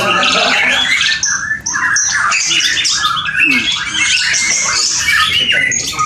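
White-rumped shama singing in a cage: a rapid, unbroken run of varied high notes.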